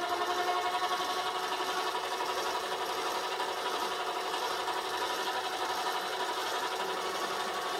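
Small metal lathe running with its spindle and collet chuck spinning at speed: a steady motor and drive whine with several held tones.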